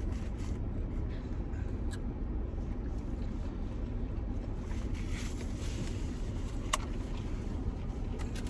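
Steady low rumble inside a car's cabin, with a sharp click about two-thirds of the way through.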